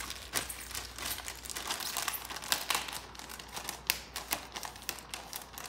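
Thin plastic packaging bag crinkling and crackling in quick, irregular snaps as it is pulled against a katana blade to slit it open.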